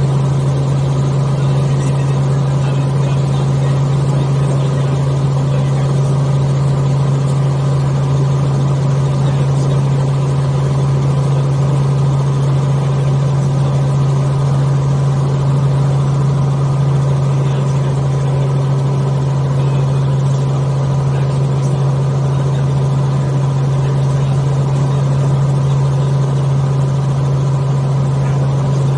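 Helicopter in steady cruise flight, heard from inside the cabin: a loud, unbroken drone of engine and rotors with a strong low hum.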